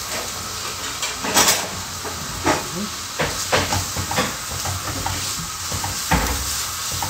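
Kitchen clatter: a string of knocks and clicks as things are handled at a kitchen counter and cupboard, over a steady hiss, with one louder hissing burst about a second and a half in.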